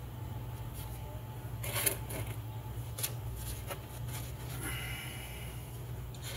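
Paper paint strainer rustling as it is handled and fitted into a plastic mixing cup, with a few sharp clicks and taps, the loudest about two seconds in, over a steady low hum.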